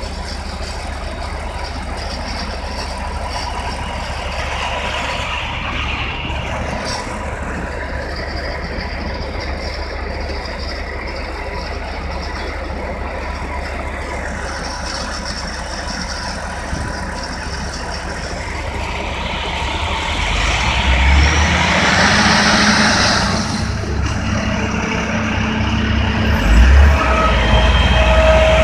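Heavy snowplow trucks running and moving along the road, a steady engine rumble that grows louder over the last third, with a stronger rushing noise for a couple of seconds before it settles back.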